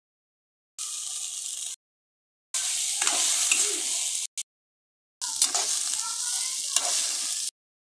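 Fried vegetables and fusilli pasta sizzling in a frying pan while being stirred, with a few scraping ticks. It comes in three short stretches split by abrupt silent cuts.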